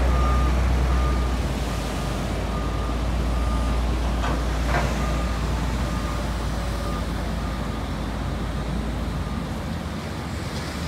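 Dump truck's diesel engine running with its reversing alarm beeping about twice a second. The engine rumble fades near the end, and there is a single knock about halfway through.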